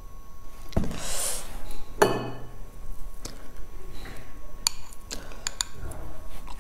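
Chopsticks clicking and clinking against a glass dipping bowl and a plate of boiled dumplings: a handful of separate sharp clinks with a short ring, several in quick succession about five seconds in.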